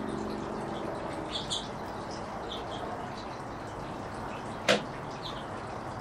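Small finches at a tube feeder giving short, high chirps here and there, with one sharp click a little before the end, the loudest sound, over a steady background hiss. A low hum fades out in the first second.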